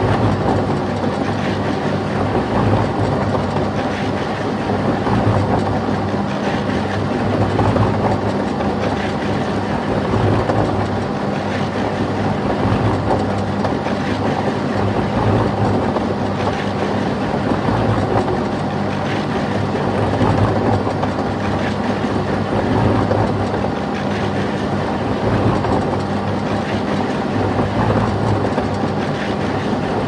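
Empty concrete mixer running with its drum turning, heard close to the drum. A steady motor hum carries a rattling clatter that swells about every two and a half seconds.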